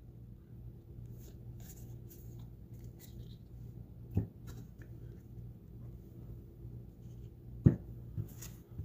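Magic: The Gathering cards being handled and squared into a stack on a playmat: faint slides and clicks, with a soft knock about four seconds in and a sharper one near the end as the stack is set down. A faint steady hum runs underneath.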